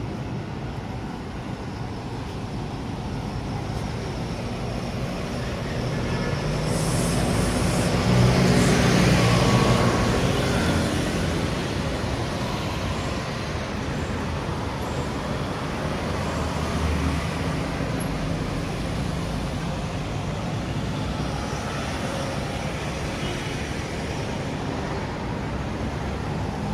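Street traffic noise, with one motor vehicle's engine swelling as it passes close about a third of the way through, then fading back into the steady traffic.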